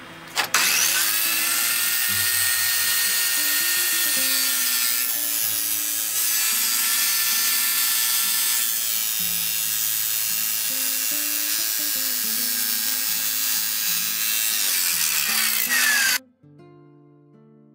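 Hand-held circular saw fitted with a DeWalt abrasive metal cut-off wheel starting up about half a second in and grinding steadily through a 16-gauge stainless steel sheet with a loud, high whine. Near the end the saw is switched off, its whine falling as the wheel spins down.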